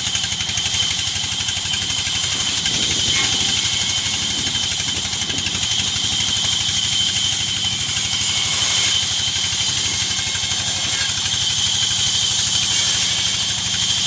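Large vertical band saw running steadily as logs are pushed through its blade: a constant machine drone with a thin, steady high whine over it.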